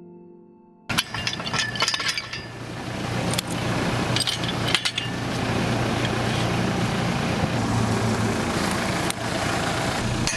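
Steel pipes clinking and knocking against each other as they are handled, with the sharpest clinks in the first few seconds, over the steady drone of an engine running.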